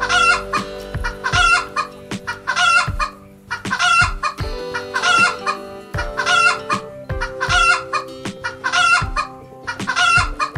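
Chickens clucking, a steady series of short calls about every three-quarters of a second, over soft background music.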